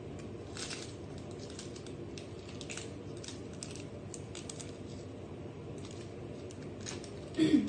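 Instant-coffee stick sachets being handled and torn open: scattered crinkles and little crackles over a steady low hum, with a short louder thump near the end.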